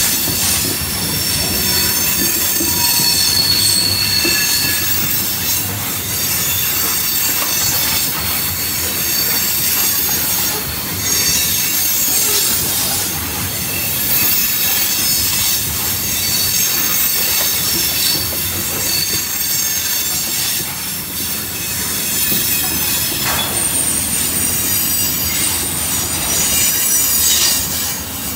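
Loaded ethanol tank cars of a freight train rolling past, their wheels squealing on the rail in several high, shifting tones over the steady rolling noise; one high squeal holds steady near the end.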